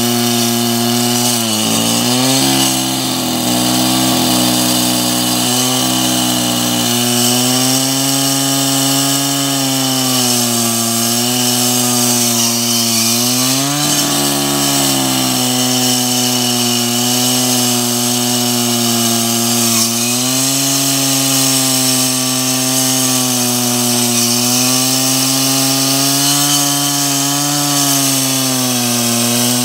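Handheld electric diamond-blade cutter cutting into a prestressed spun-concrete pile: a steady motor whine over a grinding hiss. The pitch sags and wavers as the blade is pressed into the concrete, most noticeably between about two and seven seconds in and again around the middle.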